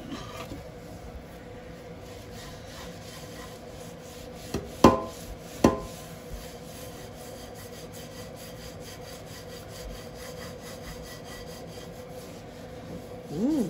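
Paper towel rubbing and scrubbing over the soot-blackened base of a frying pan coated in a baking-soda and vinegar paste. Two sharp metallic knocks ring briefly about five and six seconds in.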